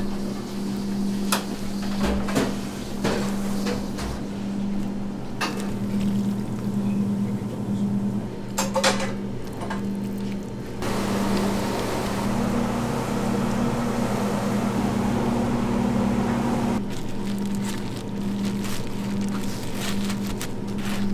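Kitchen ambience: a steady electrical hum, with a few sharp clicks and light knocks of utensils and metal tongs. A hiss comes in about eleven seconds in and stops about six seconds later.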